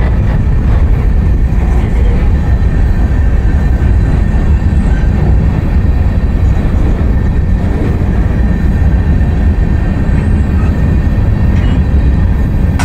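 Freight cars rolling past close by, covered hoppers then open gondolas: a loud, steady rumble of steel wheels on rail, with a faint steady high tone above it.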